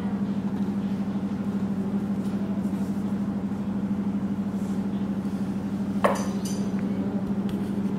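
A single sharp metallic clink about six seconds in, with a brief ring, as a gold-plated silver necklace with coin pendants is handled. A steady low hum runs underneath.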